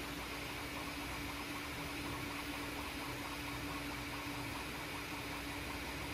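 Bambu Lab P1S 3D printer's cooling fans running steadily, with a constant low hum and an even hiss; no print moves are heard.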